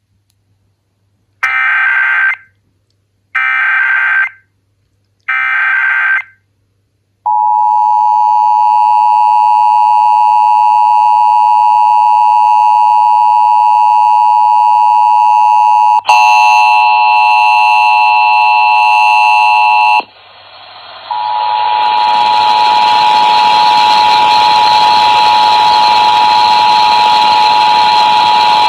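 Emergency Alert System test signal. Three short bursts of raspy digital SAME header data come first, then the steady two-tone EAS attention signal. The tone changes abruptly partway through, and after a brief drop it goes on as a steady tone over heavy hiss.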